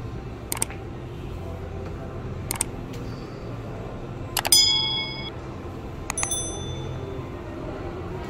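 Subscribe-button animation sound effects: two short mouse clicks about two seconds apart, then a click followed by a bright bell ding about four and a half seconds in, and another click with a brief high chime near six seconds, over a low steady hum.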